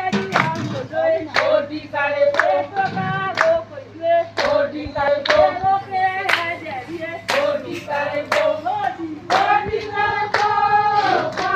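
A group of women singing a song together, clapping their hands in time about once a second.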